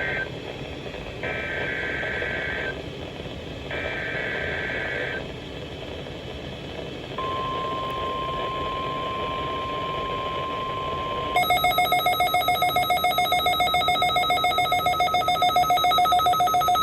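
NOAA Weather Radio Emergency Alert System test: the SAME digital header sent as two-tone data screeches, the third ending about 5 seconds in. After a pause comes the steady 1050 Hz warning alarm tone for about four seconds. Then a louder, fast-pulsing electronic alert beep starts and keeps going, as from a weather radio receiver set off by the signal.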